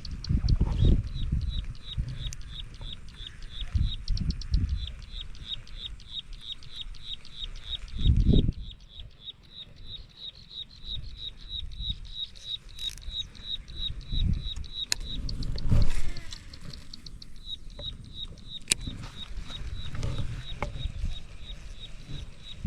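An animal calling in a fast, regular series of short high chirps, about five a second, with a couple of brief breaks. Irregular low thumps and rumbles come and go over it, the loudest about 8 and 16 seconds in.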